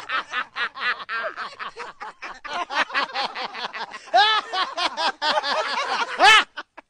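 A man laughing hard in quick repeated ha-ha's, with louder, higher whoops about four seconds in and again near the end.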